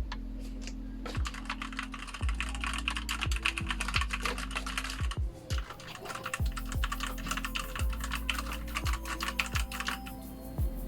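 Rakk Lam-Ang Lite mechanical keyboard with linear red switches being typed on rapidly, in two runs of fast keystrokes with a short pause in the middle.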